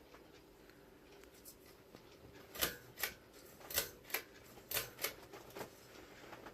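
A 1988 CEC Georgian 303D ceiling fan's motor running with a faint steady hum. Partway through, about eight sharp clicks and rustles come in quick succession over roughly three seconds.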